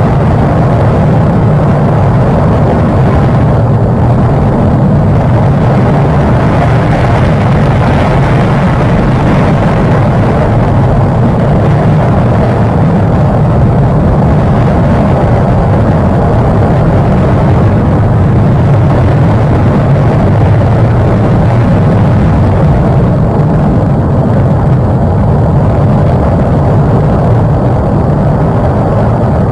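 Cumbre Vieja volcano erupting: a loud, steady, deep rumble without a break.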